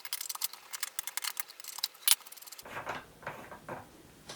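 Quick run of light metallic clicks and ticks from unscrewing the X2 mini mill's spindle locknut with a collet wrench, stopping about two and a half seconds in, followed by a few fainter metal clinks.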